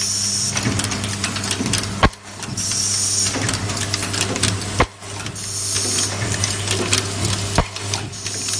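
An automatic nylon zipper film-sealing, hole-punch and pin-box machine running: a steady low hum with constant fine rattling of metal parts in its vibratory bowl feeders. A sharp knock comes about every two and three-quarter seconds, three times, and a short high-pitched hiss sounds about once per cycle, four times.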